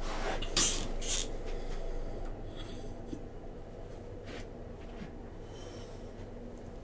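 A few short scratching and rustling strokes, of something being handled or rubbed, mostly in the first three seconds, then only a faint steady hum.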